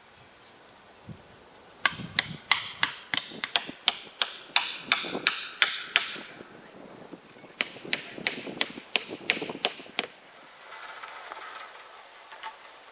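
Hammer driving nails into wooden concrete form boards: two quick runs of blows, about four a second, each with a bright metallic ring. A short rustle follows near the end.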